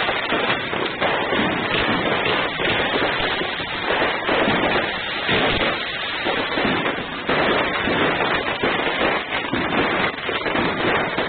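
Fireworks going off without a break: a dense crackle of many overlapping bangs and pops from rockets and aerial bursts, with crackling glitter effects.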